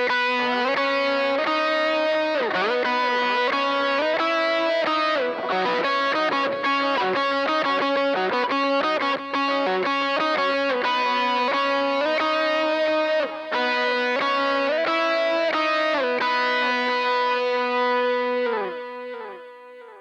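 Distorted electric guitar played through a BOSS GT-100 multi-effects preset: a lead line of held notes with bends and slides. It starts abruptly and fades out near the end.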